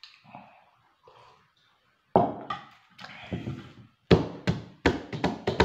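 A mug set down on a table with a thunk about two seconds in. About four seconds in, music with a sharp, steady percussive beat starts.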